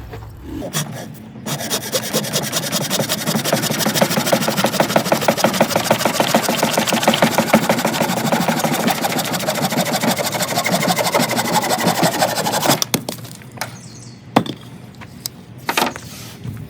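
Corona razor tooth hand saw cutting through a decayed oak log in fast, even back-and-forth strokes, stopping about 13 seconds in; a few sharp knocks follow.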